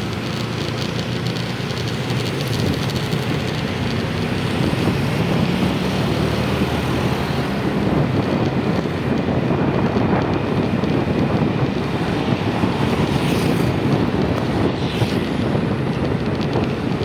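Steady road and traffic noise from travelling along a road, with wind rushing over the microphone; it grows a little louder over the first few seconds and then holds. No horn stands out.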